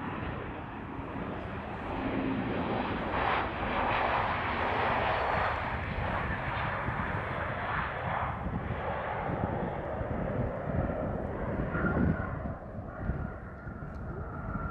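Lufthansa Embraer E190 jet airliner landing, its two turbofan engines making a rushing jet noise that swells about two seconds in, holds loudest for several seconds as it passes, then eases off, leaving a faint steady whine near the end.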